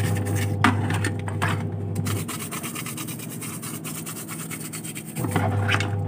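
An old toothbrush scrubbing rapidly back and forth over a plastic washing-machine lint filter box, the bristles rasping on the plastic grid. A low machine hum runs under it, stopping about two seconds in and starting again near the end.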